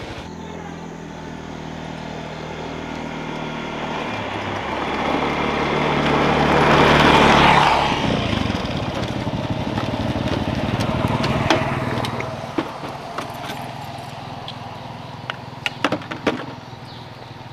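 A small engine running steadily, with a louder rush that swells about six seconds in and dies away around eight seconds. A few sharp knocks follow near the end.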